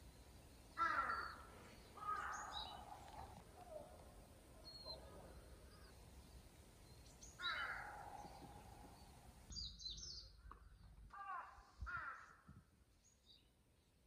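Faint bird calls in woodland: a handful of separate short calls spaced a few seconds apart, with several coming close together near the end.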